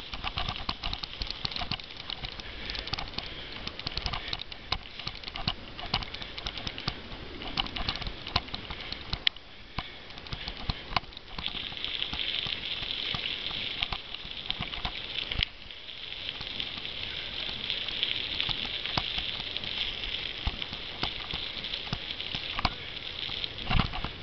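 Cyclo-cross bike ridden over rough ground: a run of rattles and knocks, irregular and quick, with a steady hiss that sets in about halfway through.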